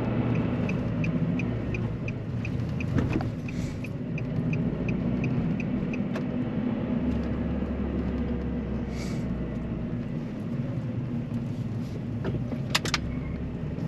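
Car running, heard from inside the cabin: a steady low engine and road hum. A quick, even ticking, about three a second, runs over the first six seconds or so, and a couple of sharp clicks come near the end.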